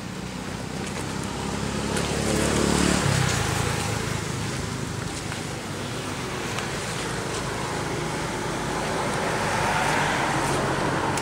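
A motor vehicle passing on a road, its engine and tyre noise swelling to loudest about three seconds in, with the engine note dropping in pitch as it goes by. The traffic noise swells again near the end.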